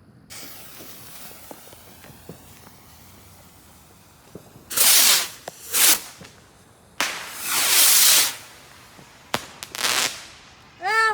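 Consumer firework going off: a fuse hisses, then several loud hissing bursts follow, each about half a second to a second long, with a few sharp cracks near the end.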